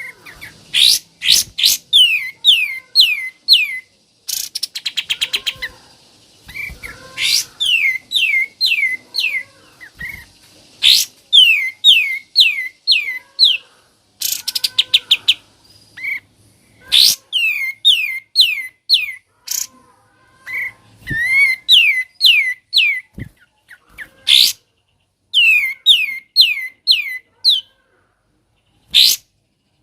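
Pied triller (kapas tembak) singing its 'ngebren' call: phrases of quick, sharply falling whistled notes, broken up by fast rattling trills a few times, with short pauses between phrases.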